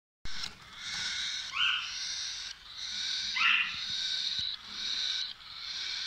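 Cockatiels calling in a string of long, harsh, raspy notes, broken twice by a short rising chirp.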